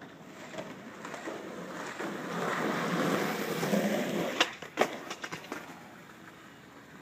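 Skateboard wheels rolling on pavement, growing louder as the board comes near, then two sharp clacks of the board hitting the ground about half a second apart, followed by a few lighter clatters.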